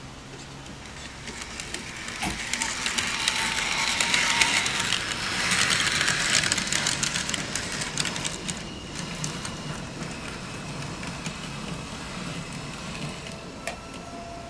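N scale model tram running along its track, its small electric motor whirring and its wheels clicking over the rail joints. It grows louder as it passes close by, then fades away.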